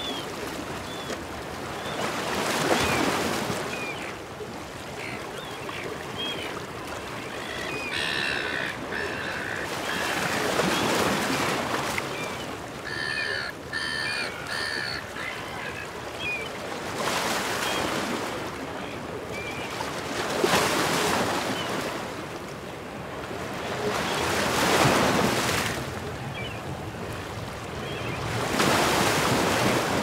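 Surf washing over a rocky beach in slow surges every few seconds, with silver gulls calling in short repeated squawks, about a third of the way in and again around the middle.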